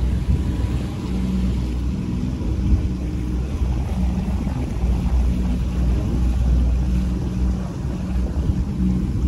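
Motorboat engine running steadily with the boat under way.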